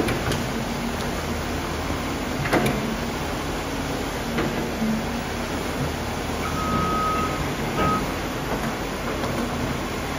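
Compact excavator's diesel engine running steadily under hydraulic load as its toothed drum attachment works the soil in the trench, with a sharp knock about two and a half seconds in and scattered clicks. A thin high tone sounds briefly twice, about two-thirds of the way through.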